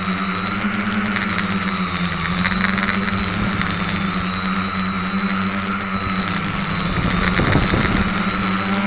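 SK450KK2 quadcopter's electric motors and propellers whirring steadily, heard through the onboard camera's microphone. The pitch wavers gently up and down with throttle, and the sound turns briefly louder and rougher about seven seconds in.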